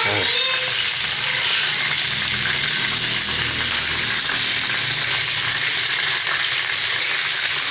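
Butterfly lizard meat frying in hot oil in a pan, a steady sizzle throughout.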